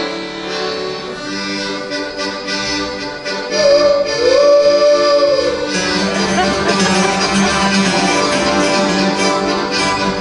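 Live acoustic country band playing, with the accordion prominent over strummed acoustic guitars. The music gets louder about three and a half seconds in.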